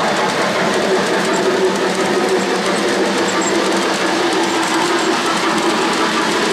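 O-gauge model freight cars rolling past on three-rail track: a steady rumble of metal wheels on the rails with light, rapid clicking.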